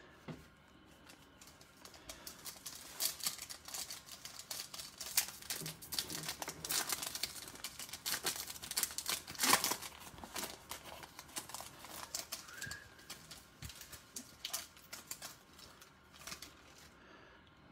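Trading-card pack wrapper crinkling and tearing open as the cards are handled: a long run of small crackles and clicks.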